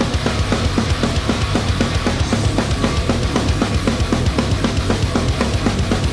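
Fast rock music: a drum kit pounding a quick, even beat of kick and snare with cymbals, over a driving bass line.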